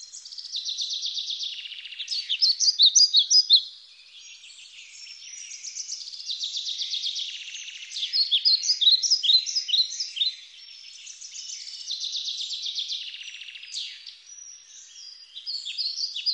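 A songbird singing the same song again and again, roughly every five to six seconds: a fast buzzy trill followed by a string of quick chirping notes.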